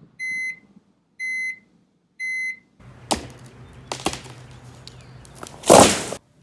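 An electronic appliance beeps three times, about once a second, in a single high tone. Then come a few clicks over a low hum, and a loud rushing burst near the end.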